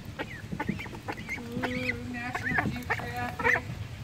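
Young ducks peeping and calling, a rapid run of short, high, rising calls, with a longer, lower call held for most of a second about a second and a half in.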